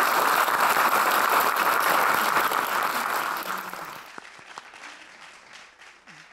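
Audience applauding at the end of a talk, steady for about three seconds, then fading away.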